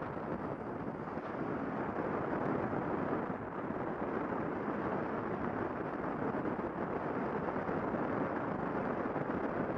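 Steady rush of wind and road noise picked up by a helmet-mounted camera on a motorcycle at cruising speed, with no distinct engine note standing out.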